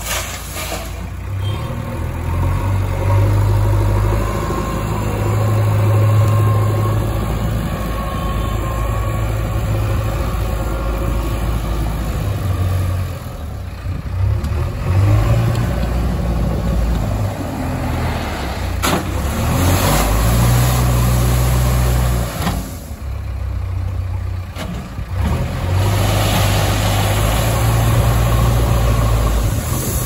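JCB 3DX backhoe loader's diesel engine running, its revs rising and falling as the loader works crushed stone. A sharp knock sounds a little past halfway.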